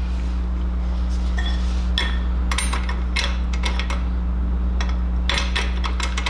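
Metal clinks and rattles of a steel floor-jack handle being handled and fitted to the jack, a few separate clinks about two and three seconds in and a quicker cluster near the end, over a steady low hum.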